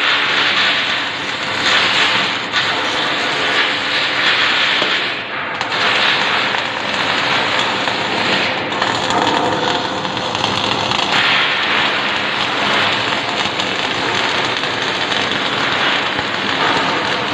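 Electric welding arc crackling steadily, with brief breaks in the arc a few times.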